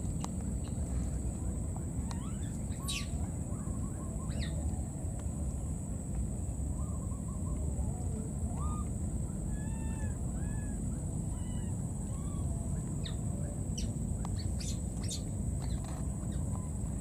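Scattered bird chirps and short arched calls, clustered about three, eight to twelve and fourteen seconds in, over a steady high-pitched drone and a constant low rumble.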